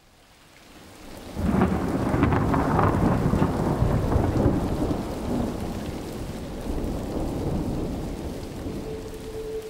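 Thunder with rain: after a fade-up, a rumble of thunder breaks about a second and a half in and slowly dies away over the steady hiss of rain. Near the end a single held note starts to sound.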